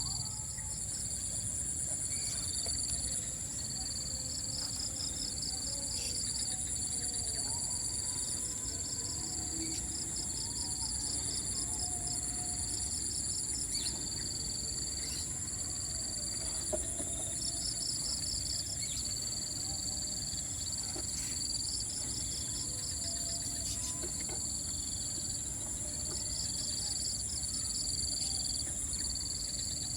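Insects chirping in chorus: two steady, high, continuous trills, with a lower pulsed chirping that starts and stops every second or two.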